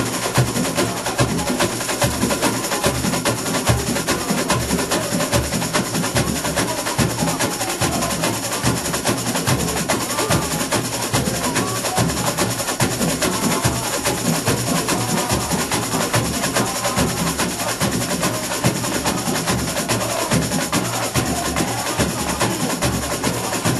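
Samba school bateria playing a live, purely instrumental batucada: massed surdo bass drums pulsing under dense snare and small-percussion strokes in a fast, steady samba rhythm.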